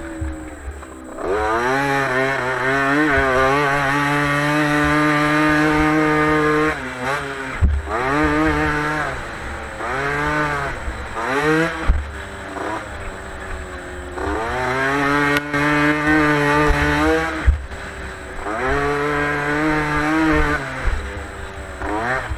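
Motocross bike engine heard from an onboard camera, revving hard and holding high revs, then dropping off and picking up again about four times as it goes round the dirt track. A few sharp knocks come through as it rides over the bumps.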